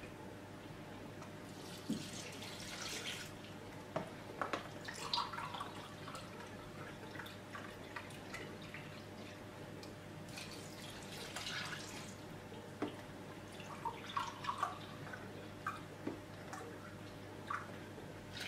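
Milk poured from a carton and a glass measuring cup into a bowl of batter: two pours of a second or two each, with small clinks and knocks of the glass and carton in between.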